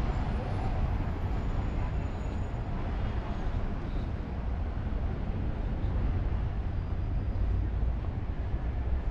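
Outdoor city street ambience picked up while walking: a steady low rumble with a hiss above it, with no distinct events standing out.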